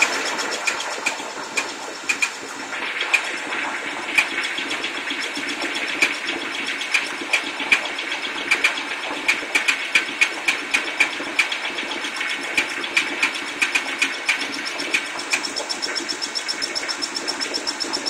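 2002 Ford Taurus 3.0-litre V6 running, with sharp bird-like chirps from the driver side of the engine several times a second that come faster near the end. The chirping comes from a failing camshaft synchronizer and is the sign that it is due for replacement.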